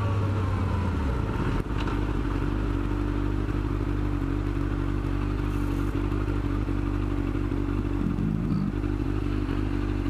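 Motorcycle engine coming off the throttle as the bike pulls over to the curb, dropping about a second in to a steady idle that runs on unchanged.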